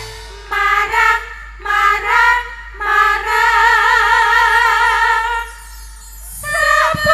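Several women singing a campursari song in unison, long held notes with a wide vibrato, in short phrases with brief breaks between them. There is little instrumental sound under the voices.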